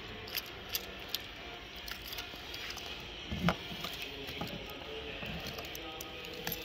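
Faint scattered clicks of keys and handling as the car's key is brought to the boot lock, with a dull knock about three and a half seconds in.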